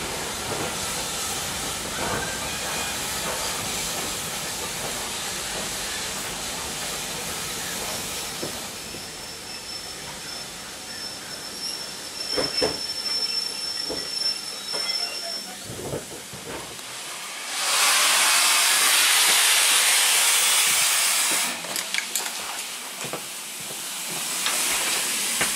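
Steam locomotive heard from inside a railway carriage: a steady hiss and rumble with a thin high tone in the middle and a few sharp knocks, then a loud burst of escaping steam a little past halfway that lasts about three and a half seconds and cuts off suddenly.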